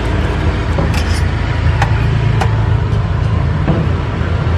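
Steady low engine rumble, with a few sharp clinks of a metal serving spoon against steel food trays.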